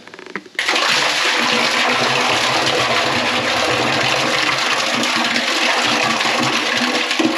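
A bucketful of thick, grainy slurry of soaked bacterial starter poured into the tank of a household biological sewage treatment plant, splashing steadily into the water below. The pour starts about half a second in and tails off at the end.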